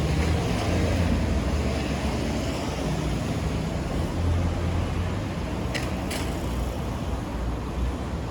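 Road traffic: cars passing by with a steady low tyre-and-engine rumble. Two short clicks close together about six seconds in.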